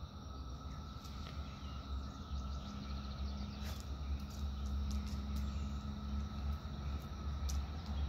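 Outdoor ambience: a low steady rumble with a faint, steady insect drone over it, and a few light clicks of a dog's claws on concrete pavers.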